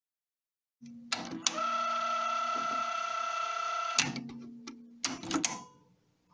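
Cassette deck tape transport running on its repaired idler wheel, fitted with a home-made silicone rubber tyre: a low motor hum and sharp mechanism clicks, then a steady high whine for about two and a half seconds, and a quick cluster of clicks about five seconds in.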